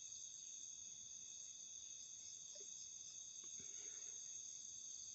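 Faint, steady chorus of crickets, several high-pitched trills running together without a break.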